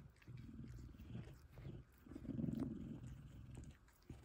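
F2 Savannah cat purring loudly in a steady rumble that swells loudest about two seconds in and dips briefly near the end.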